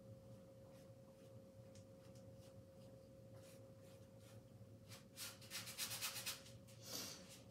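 Faint bristle-paintbrush strokes rubbing and scrubbing through paint, a few scattered strokes at first, then a quick run of close strokes from about five seconds in. A faint steady hum sits underneath.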